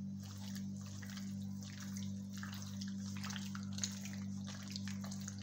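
A bare hand squishing and kneading raw beef chunks in a thick yogurt-and-spice marinade in a glass dish: irregular wet squelching, over a steady low hum.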